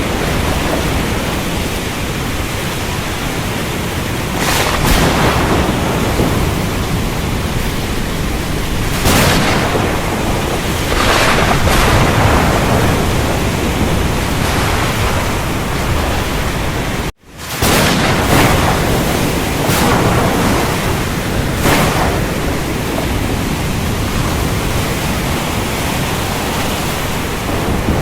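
Thunderstorm: steady heavy rain with low rumbling thunder, swelling louder several times. The sound cuts out for an instant a little past halfway.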